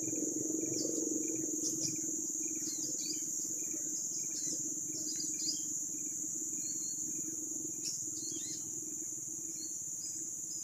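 Steady high-pitched drone of insects, with scattered short bird chirps and calls over it, and a low steady hum underneath.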